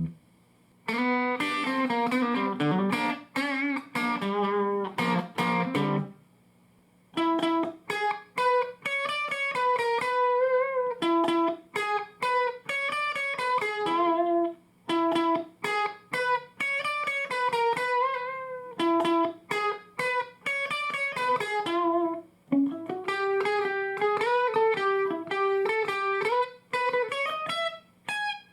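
Electric guitar played through a 1987–89 Fender The Twin 'red knob' tube amplifier, with four 6L6GC power tubes: a few seconds of chords, then a run of single-note melodic phrases with short pauses between them.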